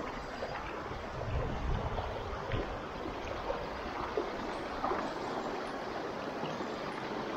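Shallow, rocky mountain stream running over stones: a steady rush of water, with a brief low rumble between one and two seconds in.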